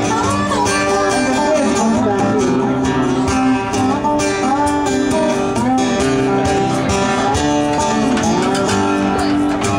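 Live country music in an instrumental break: a strummed acoustic guitar with a melodic lead line that bends and wavers in pitch over it, no singing.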